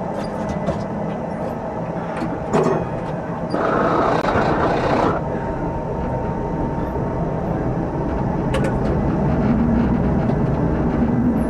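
Tram running along its rails, heard from inside the driver's cab: a steady rumble of wheels and running gear, with a louder hissing stretch about four seconds in and a few sharp clicks later on. The low running noise grows slightly toward the end.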